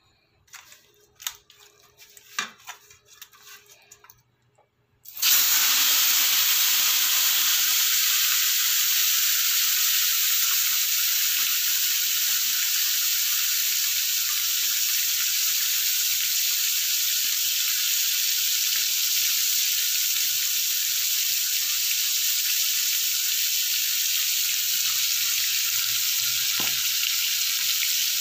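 A few faint knocks, then about five seconds in a whole fish goes into hot oil in a steel frying pan and the oil starts sizzling, loud and steady from then on as the fish deep-fries.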